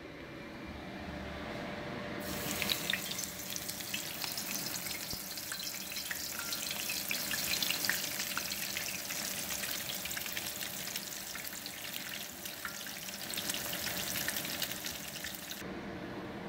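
Flour-dredged tilapia fillet sizzling in hot oil in a stainless steel skillet: a dense hiss full of small crackles and pops. It starts about two seconds in and cuts off suddenly near the end.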